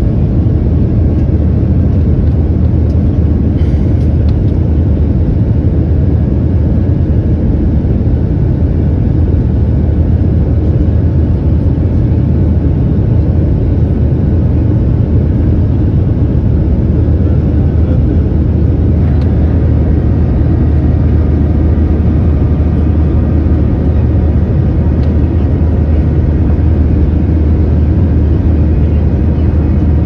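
Steady cabin noise of a jet airliner in flight, a loud unbroken drone from the engines and airflow heard from a window seat.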